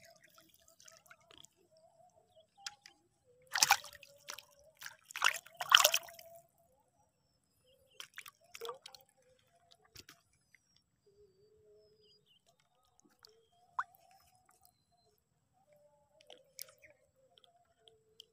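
Water splashing at the surface of shallow flooded water: a few sharp splashes about three and a half to six seconds in, the loudest near six seconds, then softer drips and small splashes.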